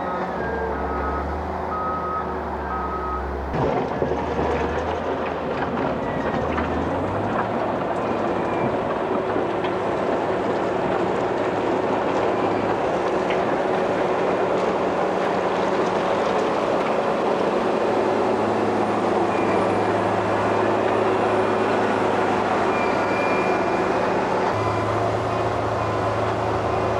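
Heavy diesel construction machine running steadily, its engine note shifting a few times, with a reversing alarm beeping briefly at the start and a single clunk about four seconds in.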